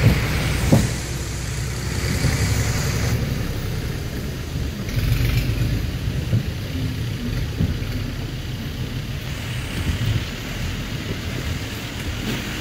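4x4 jeep engine running at low revs while crawling over a muddy, waterlogged track, a steady low rumble with a single knock near the start as the vehicle jolts.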